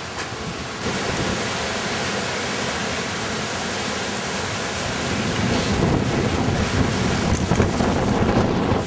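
Wind buffeting an outdoor microphone: a steady rushing noise with gusty low rumble, growing stronger about five seconds in.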